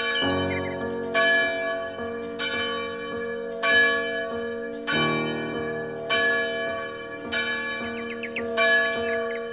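Church bells ringing in a steady peal, a fresh strike about every second and a quarter, each tone ringing on under the next.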